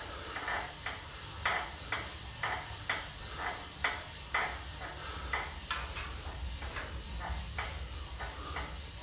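Light, irregular clicks and taps, roughly two a second, over a low steady hum.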